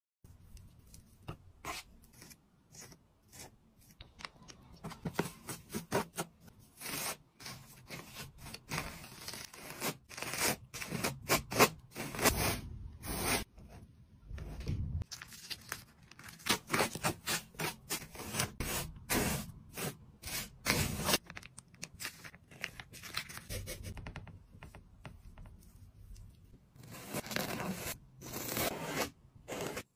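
Metal palette knife and flat brush scraping and spreading gritty salt-and-sand acrylic paste over a palette and a canvas. The strokes are irregular and rasping, one after another.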